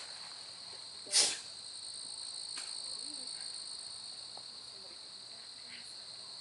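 Steady night chorus of crickets, a continuous high-pitched trill. About a second in, one sudden loud knock cuts through it.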